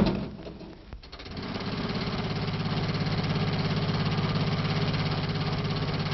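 A sharp bang, then about a second in an old bus engine starts up and runs with a fast, steady chugging.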